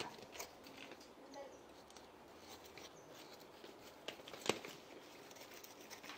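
Knife cutting hands of raw plantains off the bunch stalks: scattered short chops and knocks, with one sharper knock about four and a half seconds in.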